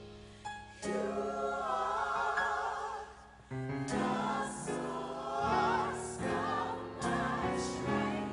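Gospel choir singing sustained chords with vibrato, a new phrase coming in about a second in and again at about three and a half seconds.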